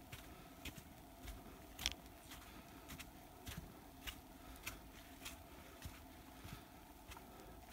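Footsteps of a hiker walking on a dirt trail strewn with dry fallen leaves, faint, at about two steps a second.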